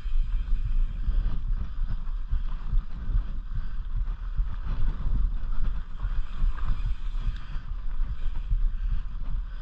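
Wind buffeting the microphone over the rumble and rattle of a mountain bike rolling over a bumpy dirt trail, with many small jolts from rocks and ruts.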